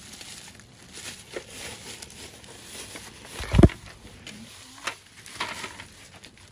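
Thin plastic shopping bag rustling and crinkling as it is handled, with a heavy thump about three and a half seconds in and a sharp knock a second later.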